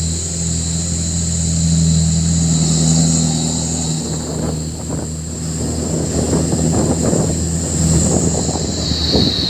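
Truck engine running with a steady low drone, joined about halfway by a growing crackling rattle. A steady high whistling sits above it throughout.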